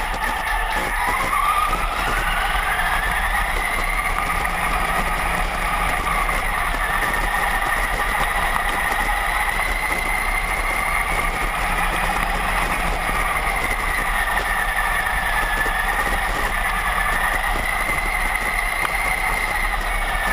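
Electric motor and gear whine of a Traxxas Summit 4x4 RC truck driving. The whine rises in pitch over the first few seconds, then holds and wavers up and down as the throttle and speed change.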